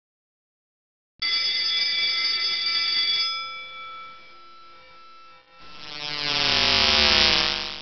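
A bright bell-like ring starts about a second in and fades away. Near the end a swelling sweep falling in pitch grows louder and then cuts off suddenly.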